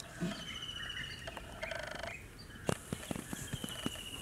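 Birds calling, with high trilled chirps and a short rapid rattling call about two seconds in. Several light sharp taps come in the second half, as hands press a heavy metal lid down onto a dough-sealed cooking pot.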